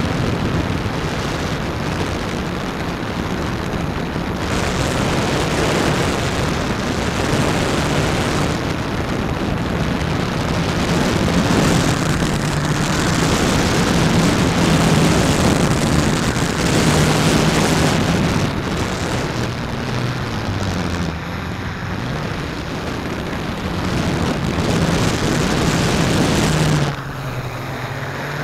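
Hexcopter's electric motors and propellers running in flight, heard from a camera mounted on the craft: a steady hum under a dense rush of prop wash and wind on the microphone. Near the end the sound drops suddenly in level and turns duller.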